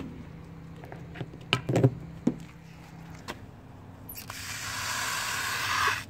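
A few light knocks and clicks of handling, then about four seconds in water starts rushing out of a garden hose as a loud, steady hiss that grows louder and stops abruptly.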